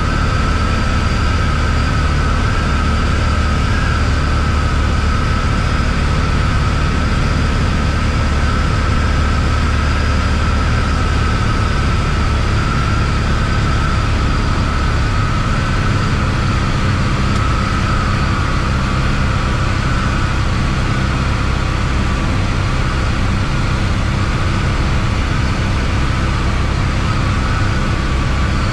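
Embraer Tupi's single four-cylinder Lycoming O-360 piston engine and propeller running steadily in cruise descent, heard from inside the cabin as a loud continuous drone. The low part of the drone shifts slightly about twelve seconds in.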